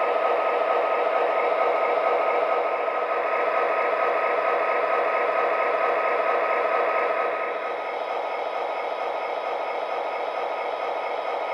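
Proto-Sound 3.0 diesel engine sound of an MTH O scale SD50 model locomotive, idling steadily from its onboard speaker. It gets slightly quieter about seven and a half seconds in.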